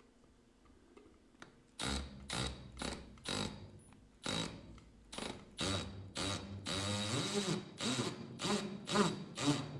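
Power drill driving screws into wood in short trigger pulls, about a dozen of them, starting roughly two seconds in; the motor's pitch rises and falls with each pull.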